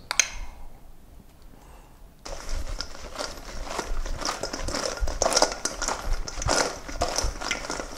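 Crispy fried chicken bites being tossed in gochujang sauce in a stainless steel mixing bowl: a dense, continuous crackling and rustling of sauced pieces sliding and tumbling against the metal, starting about two seconds in after a quiet start.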